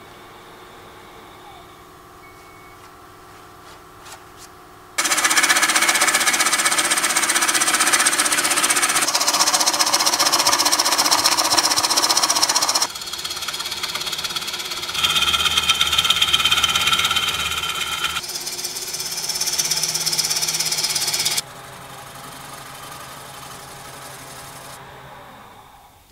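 A hollowing tool cutting the inside of a green elm bowl spinning on a wood lathe: a loud, rough cutting noise with some steady ringing tones in it. It is quieter for the first few seconds, starts loud about five seconds in, changes abruptly several times, then drops back and fades near the end.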